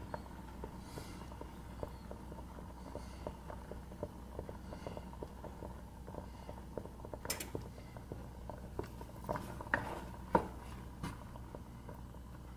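Thick mole sauce simmering in a saucepan: a steady patter of small bubbles popping at the surface over a low hum. A few sharper knocks against the pot come in the second half, as a spatula goes into the sauce.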